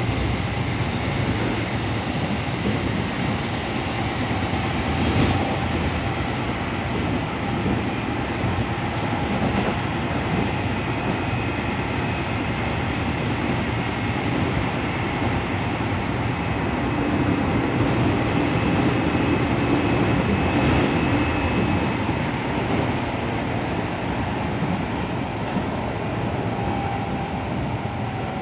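Running noise heard inside a Keio 7000 series electric commuter car in motion: a steady rumble of wheels on rail, with faint whining tones over it.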